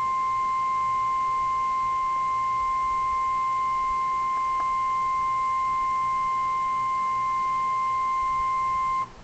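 NOAA Weather Radio 1050 Hz warning alarm tone: a single steady beep held without a break for about nine seconds, then cutting off sharply near the end. The tone signals that a warning broadcast is about to follow.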